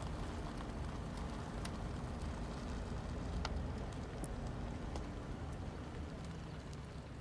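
Car rolling slowly, a steady low rumble of engine and tyres heard from inside the cabin, with a few faint ticks over it.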